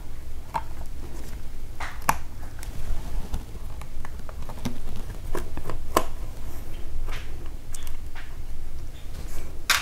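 Scattered small clicks and taps of hands working on a laptop's internal parts, over a steady low hum.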